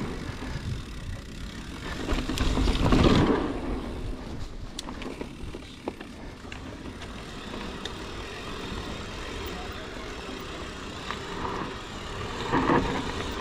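Mountain bike rolling down a dirt singletrack: a steady rough sound of tyres on dirt and roots and the bike rattling, louder for a rough stretch about two to three seconds in and again near the end.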